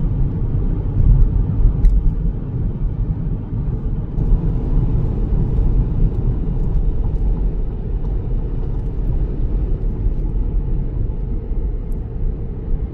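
Low, steady rumble of strong gusting wind mixed with car noise.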